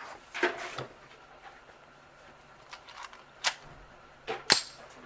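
A handful of short, sharp knocks at uneven intervals, the loudest about four and a half seconds in.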